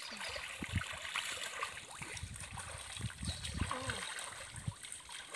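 River water splashing and trickling as hands scoop it up and splash it onto faces. The splashes come irregularly, over a steady wash of moving water.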